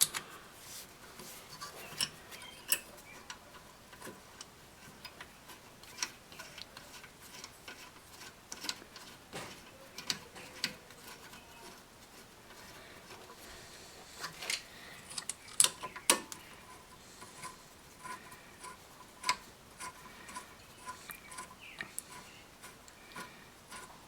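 Rear brake caliper and pads being fitted by hand: scattered light metallic clicks, clinks and taps at an irregular pace, with a few sharper knocks about two-thirds of the way through.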